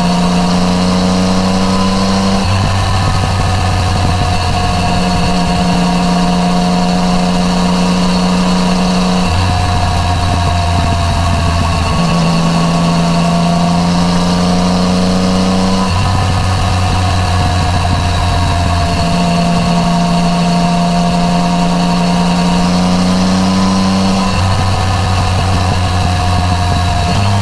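Yamaha MT-09 Tracer's three-cylinder engine through an Akrapovič titanium full exhaust, running steadily at an easy cruise, its pitch rising and dipping gently as the throttle eases on and off.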